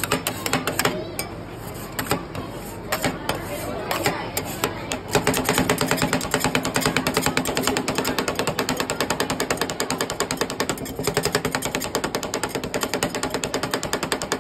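Two steel spatulas rapidly chopping and clacking against a steel ice cream roll cold plate as the guava ice cream base is chopped in. The strikes come many times a second, turning into a fast, even rhythm about five seconds in.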